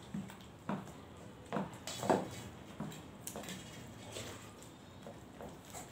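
Scattered light clinks and knocks of stainless-steel plates and bowls as rice and dal are mixed and eaten by hand. The knocks grow fainter toward the end.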